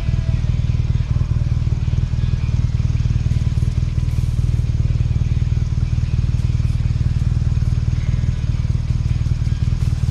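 BMW R nineT's 1170 cc air/oil-cooled boxer twin idling steadily with a fast, even low pulse, the bike at a standstill.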